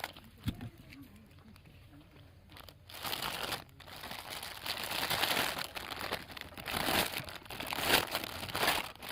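Plastic wrapping crinkling and rustling as it is handled, quiet at first and then busy and irregular for the last six seconds or so.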